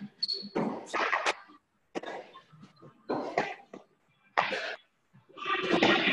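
Short, forceful bursts of breath, like coughs or hard exhalations, about once a second from people exercising hard, heard through a video call's audio. A longer, louder burst comes near the end.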